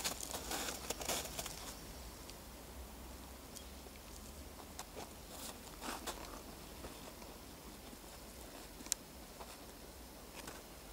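Hooded crow pecking and stepping in crusted snow: scattered soft crunches and taps, a cluster in the first second or so, then a few isolated ones.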